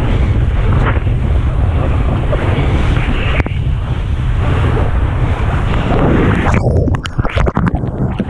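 Wind buffeting the microphone of a surfboard-mounted camera over rushing water as the board moves through the sea. From about six and a half seconds in, the sound turns choppy, with splashes and brief dropouts as whitewater surges around the board's nose.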